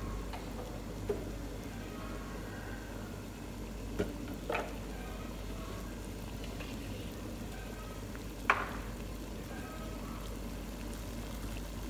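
Water in a metal pot on the stove boiling, bubbling steadily as it comes to a rolling boil. A few sharp clicks break through, the loudest about two-thirds of the way through.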